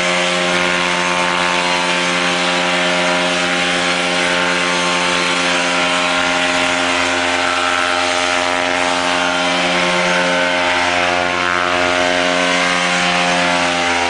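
Small propeller aircraft engine running steadily at constant speed, a strong buzzing drone.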